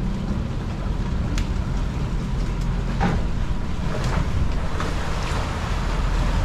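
Boat running under way on twin Yamaha 425 XTO outboards: a steady low engine drone mixed with wind and water noise, with a few brief sharp sounds over it.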